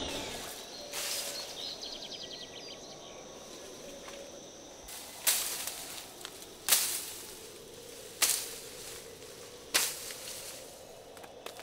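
Four sharp cracking strikes, evenly spaced about a second and a half apart, each dying away quickly, over a faint steady outdoor background.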